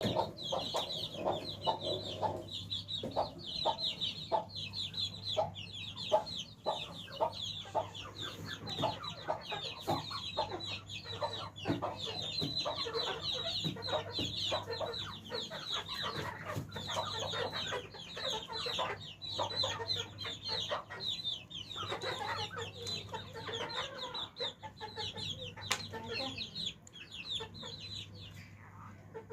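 Aseel chickens clucking, over a dense chorus of rapid, high, falling peeps, with a faint steady low hum underneath. The calls thin out near the end.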